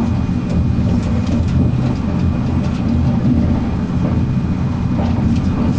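Interior running noise of an ICE 1 high-speed train travelling at speed: a steady low rumble of wheels on rail, heard from inside the passenger car.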